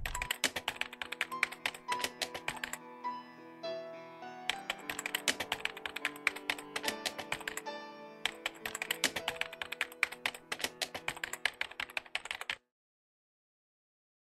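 Typing sound effect: rapid key clicks in three runs separated by short pauses, over soft sustained music notes. It all cuts off suddenly near the end.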